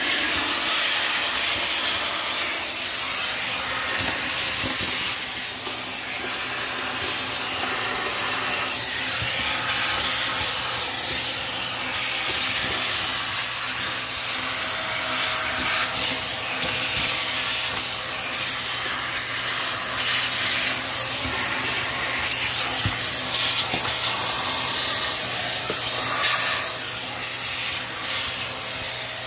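Dyson Ball Animal 2 upright vacuum cleaner running: a steady motor hum under rushing suction air that swells and dips every few seconds as it picks up dirt.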